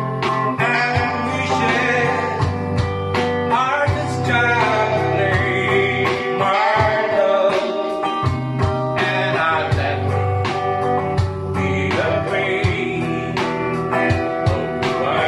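A man singing a slow ballad while strumming chords on an archtop hollow-body guitar.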